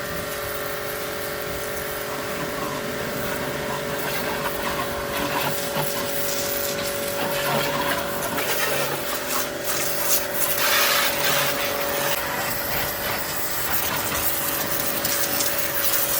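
AGARO Supreme electric high-pressure washer running, its motor and pump giving a steady hum under the hiss of the water jet spraying. The hiss swells for a couple of seconds past the middle, and a lower tone in the hum drops out about twelve seconds in.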